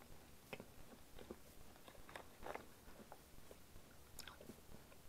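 Near silence with faint, scattered small clicks and crackles.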